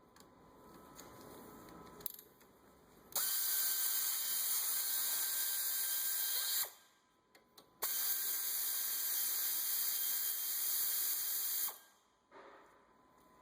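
Power ratchet spinning a 12 mm socket on brake caliper bolts, in two runs of about three and a half and four seconds, each starting and stopping abruptly.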